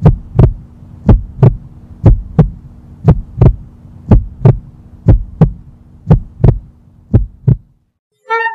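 Heartbeat sound effect: paired low thumps about once a second over a steady low hum, stopping about seven and a half seconds in. Music starts just before the end.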